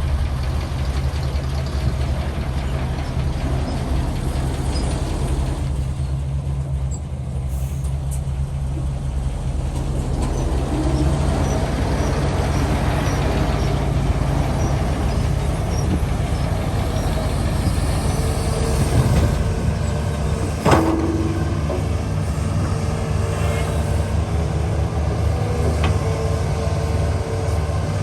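Heavy engine running steadily, its note shifting about eleven seconds in, with one sharp metallic bang about three-quarters of the way through.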